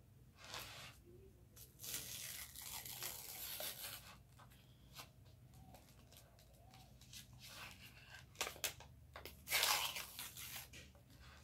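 Cardboard box being torn and peeled off a block of oven-baked cornstarch, with the dry starch crunching and crumbling, in several bursts of tearing and crunching, the loudest near the end.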